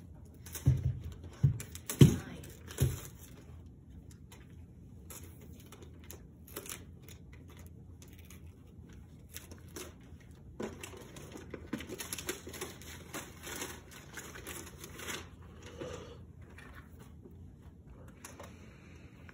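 Wrapping paper being torn and crinkled as presents are unwrapped, in crackly stretches of rustling. Four loud, dull thumps come in the first three seconds.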